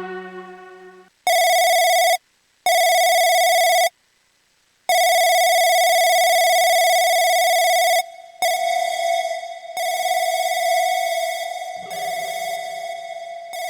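UVI 8-Bit Synth chiptune preset sounding a high, bright, steady note that rings like a telephone. The note is played three times with silent gaps between, the last held about three seconds. It then sustains with a wavering texture, and a lower note joins near the end.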